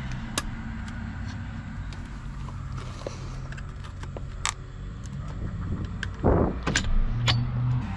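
Small metal tool bits clicking and clinking as they are handled and sorted, a few sharp clicks spread out, with a louder knock about six seconds in, over a low steady hum.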